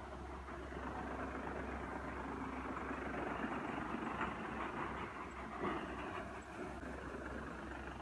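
Tractor-driven wheat thresher running steadily as wheat bundles are fed into it: a constant low engine hum under a dense rushing clatter of the threshing drum and straw, with a couple of brief swells.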